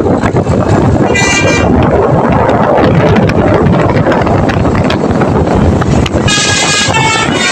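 Tour bus's telolet musical horn (a multi-trumpet Basuri-type horn) sounding a short note about a second in, then a run of changing notes near the end, over loud, steady vehicle noise.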